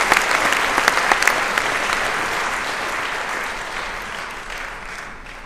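Concert audience applauding, the clapping gradually thinning and dying away toward the end.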